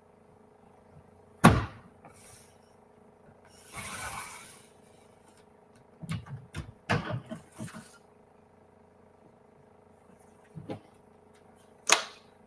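A 12-inch straight-blade paper trimmer cutting a sheet of patterned scrapbook paper: sharp clicks and knocks as the paper is set against the rail and the cutting head is handled, a short sliding hiss, and a run of small clicks and scrapes as the blade runs through the cut. A loud click near the end as the trimmer is moved.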